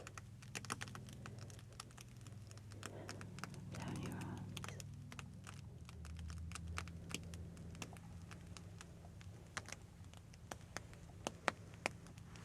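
Light, irregular tapping and crackling clicks close to the microphone, with a soft breathy sound swelling around four seconds in and a faint low hum underneath.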